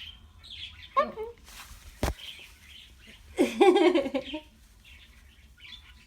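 Pet cockatoo giving soft chirps and a couple of short muttered, speech-like vocalizations, the louder one about halfway through. A single sharp click comes about two seconds in.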